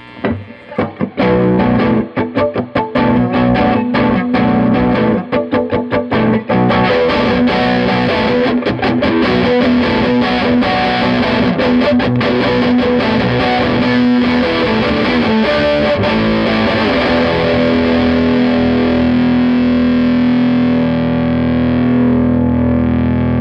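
Electric guitar played through a red-knob Fender Champ 12 tube amp with the gain all the way up, heavily distorted. It opens with short, choppy chord stabs, then about six seconds in moves to sustained, ringing chords and notes, ending on a long held tone.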